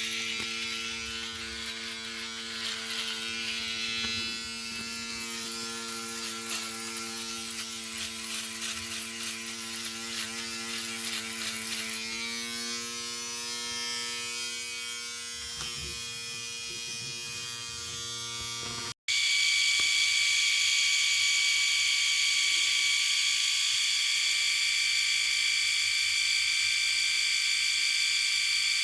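Electric shaver running with a steady buzzing hum. About 19 seconds in it cuts off for an instant and a second, louder and higher-pitched shaver buzz takes over.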